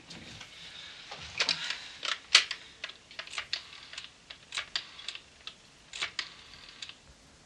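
A desk telephone being dialled: short runs of sharp mechanical clicks, a cluster about every second.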